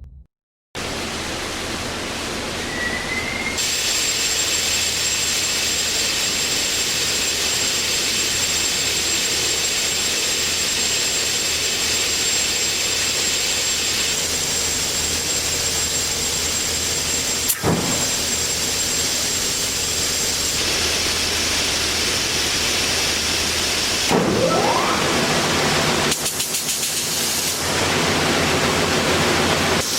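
Cemco 2000 43-inch wide belt sander running, a steady loud machine hiss and hum that starts abruptly just under a second in. A thin high whine sits over it until about two-thirds of the way through, and there is one sharp click.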